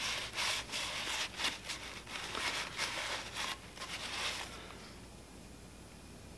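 A crumpled shop towel rubbing and rustling against a small metal part as it is wiped by hand, in a run of quick strokes that stops about four and a half seconds in.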